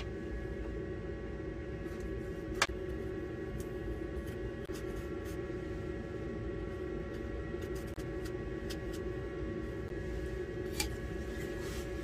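Steady mechanical hum of a running fan or motor, with several fixed tones. Two sharp clicks, about two and a half seconds in and again near the end, come from the knife cutting the apple.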